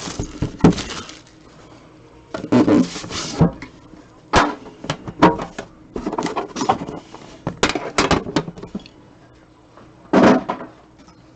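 Trading-card packaging being opened and handled: a string of short rustles and sharp clicks at irregular intervals, with several louder bursts.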